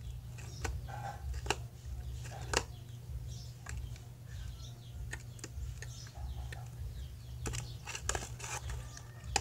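Metal spoon stirring slime in a small plastic tub: scattered clicks and scrapes as the spoon knocks against the container, over a steady low hum.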